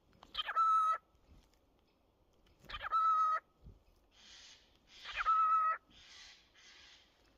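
Cockatiel calling three times, about two and a half seconds apart: each call is a quick sweep in pitch that settles into a held whistled note. Softer breathy hissing sounds come between and after the last two calls.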